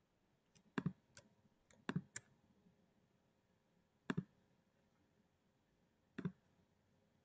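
Scattered sharp computer clicks from a mouse, several in quick pairs. About half a dozen come in the first two seconds, then one pair at about four seconds and another at about six.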